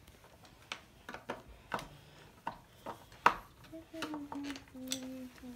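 Irregular sharp metallic clicks and taps of door lock and deadbolt hardware being handled and fitted, the loudest about three seconds in. A low voice is heard over the last second or two.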